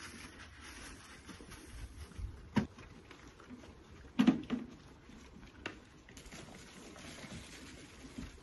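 A few sharp knocks and a short clatter about four seconds in, as a feed bucket is handled at the calf feeders, over a low steady background.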